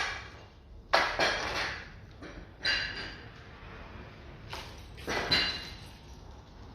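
Metal parts of a coil-spring compressor knocking and clinking together as it is handled and assembled: several sharp knocks, some with a brief metallic ring.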